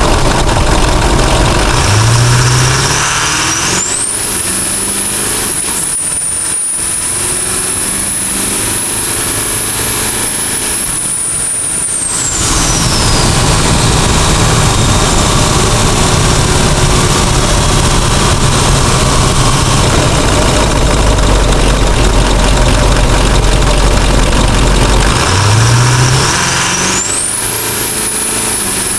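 S366 turbocharger on a Duramax diesel pickup whistling as it spools up under throttle. The high whistle climbs steeply about four seconds in, holds for about eight seconds and then falls away, while the diesel engine runs underneath. It climbs again near the end.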